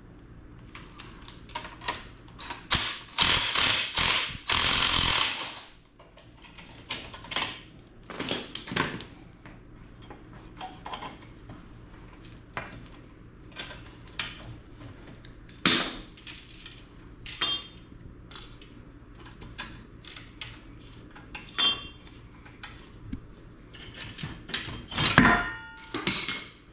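Tools and steel leaves clanking as a truck leaf spring pack is taken apart at its centre: a loud run of tool noise about three seconds in, then scattered metallic knocks and clinks, with another loud clatter near the end.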